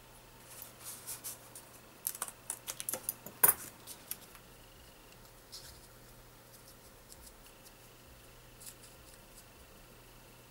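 Small metal parts of a tape head demagnetizer being handled: soft rustling, then a quick run of clicks and scrapes about two seconds in, the loudest a sharp click, followed by a few faint ticks.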